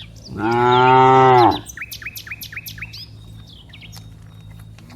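A cow moos once, loud and about a second long, then a small bird chirps a quick run of short falling notes.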